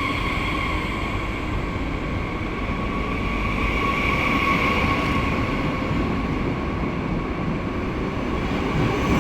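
Steady running noise of a moving passenger train heard from inside the coach: a continuous rumble with a hiss-like band on top that swells slightly about halfway through.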